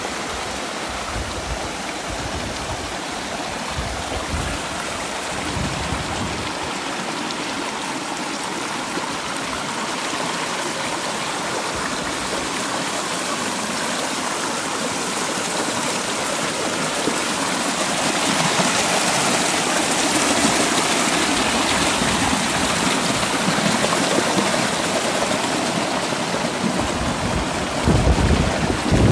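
A creek rushing and splashing down a narrow channel in granite rock: a steady hiss of flowing water that grows louder about halfway through. A low rumble comes in near the end.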